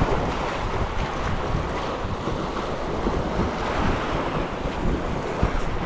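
Sea waves washing against a rocky shore, with wind buffeting the microphone in gusts.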